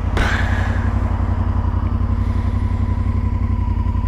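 Honda Varadero XL1000VA's V-twin engine running steadily at low revs, with a short hiss of noise right at the start.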